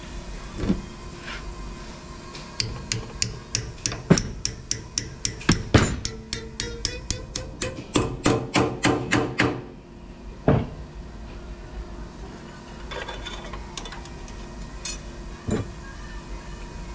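Hammer striking a steel bar clamped in a bench vise, bending it over: a quick run of ringing metal blows, about three or four a second, lasting several seconds, with a few single knocks before and after.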